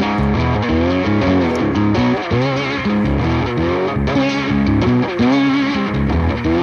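Rock music: an electric guitar riff with bending notes over bass guitar.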